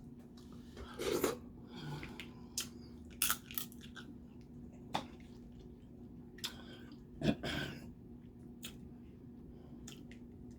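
Close-miked eating of crab and crawfish: shells cracking and crunching, with chewing, in scattered sharp clicks and a few louder crunches. A faint steady hum runs underneath.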